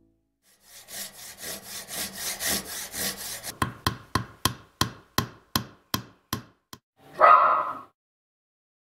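Hand saw cutting wood in quick strokes, about three a second. Then about a dozen sharp knocks on wood, and a single dog bark near the end.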